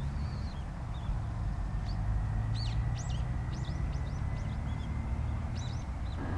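Distant Boeing 777-200 jet engines idling: a low steady rumble with a faint thin whine. In the middle, a small bird gives a quick series of chirps over it.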